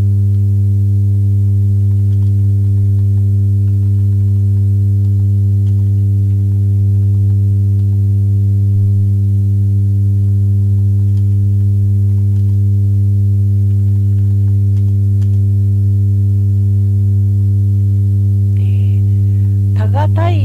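A loud, steady low hum (the uploader's 'buun' heavy low noise) with a ladder of overtones above it, never changing in pitch or level: unwanted noise picked up on the live-stream recording.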